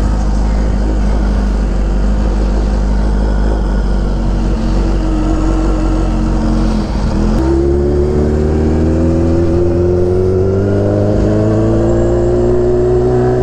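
Kawasaki Ninja H2R's supercharged inline-four running as the bike rides off at low speed. About seven seconds in the engine note steps up suddenly, then rises slowly and steadily as the bike pulls away.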